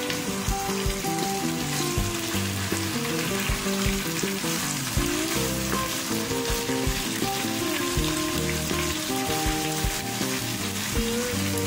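Vegetables sizzling in a frying pan as they are tossed and stirred with wooden spatulas, with scattered light knocks of the utensils on the pan. Soft background music plays underneath.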